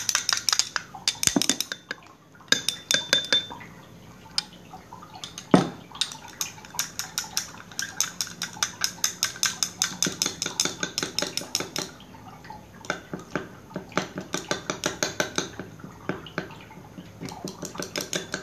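A utensil stirring quickly in a small container, clicking against its sides about five or six times a second, with a couple of short pauses and one louder knock: vitamin B5 powder being stirred into water to dissolve it.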